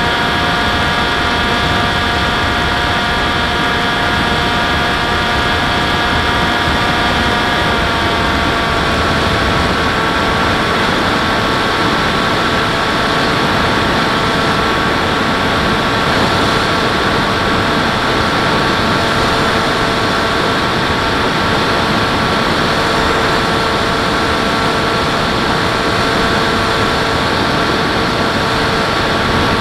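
Motor and propeller of an FPV model airplane, heard from its onboard camera: a steady whine over a rush of air, its pitch dropping a little about eight seconds in, then holding steady.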